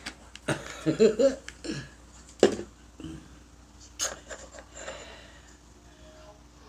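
A person's short voiced sounds and breaths, with one sharp cough about two and a half seconds in, then a sharp click about four seconds in.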